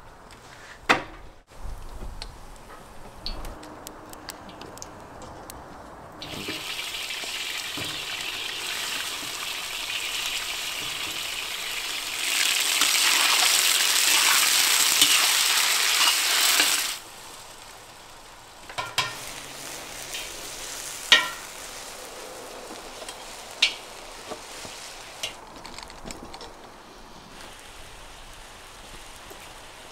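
Chunks of bison meat sizzling in a hot cauldron and being stirred with a metal ladle. The sizzle swells over several seconds and cuts off suddenly. There is a knock near the start, and a few sharp clicks come after the sizzle.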